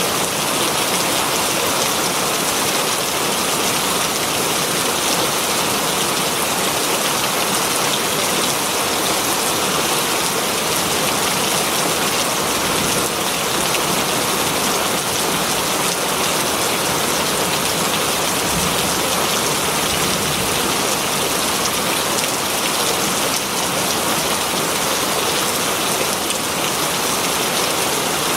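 Very heavy rain falling steadily on green leaves, a dense, even hiss of drops with no let-up.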